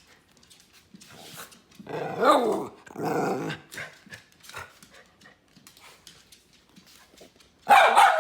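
Miniature poodle vocalising: a whining bark about two seconds in, a rougher one just after, then a loud bark near the end.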